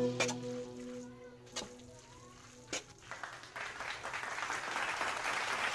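The held notes of background music die away, with a few light clicks. From about three seconds in, a steady sizzling hiss rises as linguine and the egg mixture are stirred in the hot pan.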